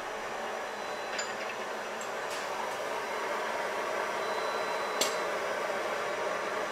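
Steady fan-like whoosh of shop machinery, with a few light metallic clicks and clinks about one, two and five seconds in.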